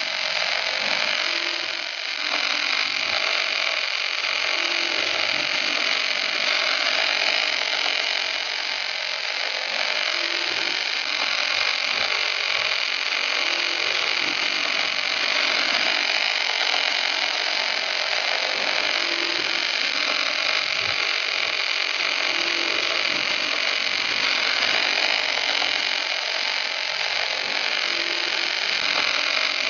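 Wire-fed arc welding torch on an automatic welding carriage, its arc giving a steady, high-pitched hiss as it lays a weld bead and throws sparks.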